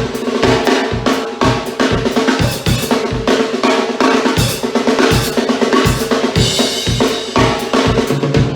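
A drum kit played loudly, with fast, busy strokes on bass drum and snare over ringing drums and cymbals.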